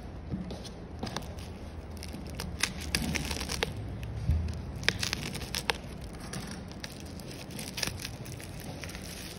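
Plastic bubble-lined poly mailer being torn open and handled, crinkling and crackling with irregular sharp snaps, thickest through the middle, with a dull bump about four seconds in.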